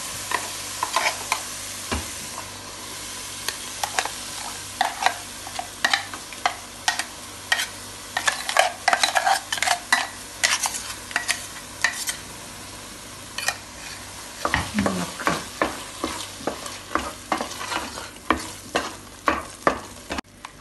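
A spoon stirring and scraping thick curry masala in a hot pan, with repeated sharp scrapes and clicks over a steady sizzle as the ground roasted-coconut paste is mixed into the fried onion and tomato base.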